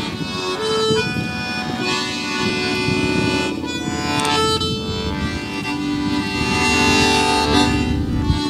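Accordion playing a tune: a melody of held reedy notes over a pulsing bass-and-chord accompaniment.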